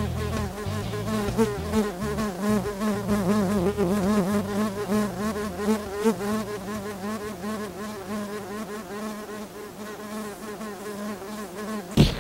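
A buzzing, wavering drone over low notes that shift and then drop out about halfway, fading steadily, cut by a single sharp click near the end.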